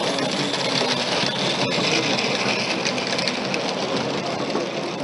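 Large-scale model narrow-gauge locomotive and wagons running past on the track: a steady mechanical whirring rattle, with fast clicking of the wheels over the rails.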